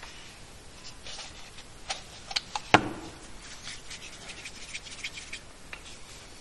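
Palms rubbing together, rolling a lump of plumber's putty into a rope, with a few light clicks and taps from the plastic putty tub being handled; the sharpest tap comes a little before the middle.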